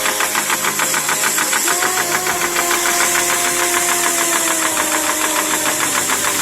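High-speed automatic 45-ton power press running, stamping in a rapid, even rhythm of about eight strokes a second over a steady machine hum.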